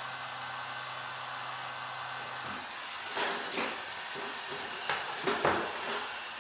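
Temperature-controlled heat gun blowing with a steady hiss and a low motor hum. The hum stops about two and a half seconds in, and then come a handful of short clicks and knocks.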